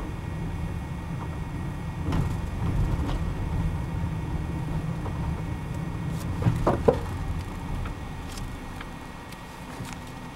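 Car driving slowly over storm debris, heard from inside the cabin: a steady low rumble of engine and tyres. Branches knock and scrape against the car, loudest in a brief cluster of knocks and a short squeal about two-thirds of the way through.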